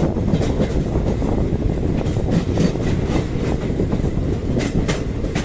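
Moving passenger train heard from an open coach doorway: a steady, loud rumble of wheels on the rails, with a few sharp clicks, some in pairs, as the wheels cross rail joints.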